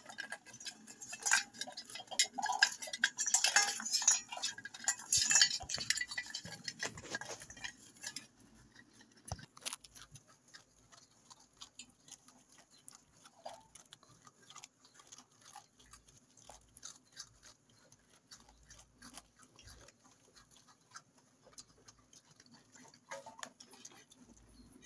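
An animal eating from a metal bowl: busy clicking, clinking and chewing against the bowl for about eight seconds, then only scattered, quieter ticks.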